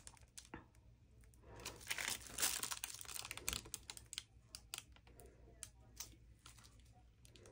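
Faint crinkling and rustling of a gloved hand handling a paper towel, with scattered light clicks and taps, loudest about two seconds in.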